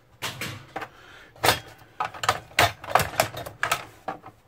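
Irregular sharp clicks and knocks of plastic covers and metal chassis parts of a flat-screen LCD monitor being handled and worked at during its teardown.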